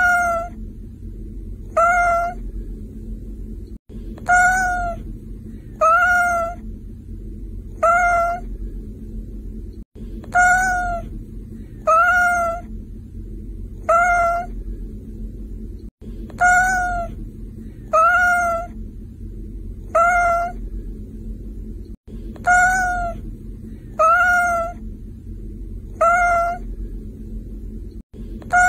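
A domestic cat meowing over and over, one short meow about every two seconds, all alike, over a low steady hum; the same three-meow pattern repeats every six seconds like a loop.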